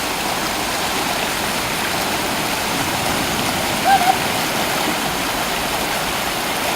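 Steady rushing of surf breaking on the beach, continuous and even, with a short high-pitched sound about four seconds in.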